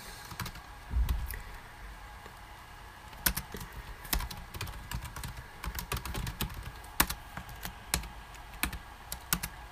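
Typing on a computer keyboard: irregular, scattered keystrokes as code is entered, with a soft low bump about a second in.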